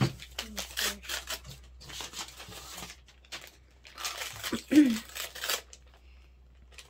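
A small patterned plastic accessory bag crinkling and tearing in several bursts as it is pulled open by hand. About halfway through, a child gives a short exclamation that falls in pitch.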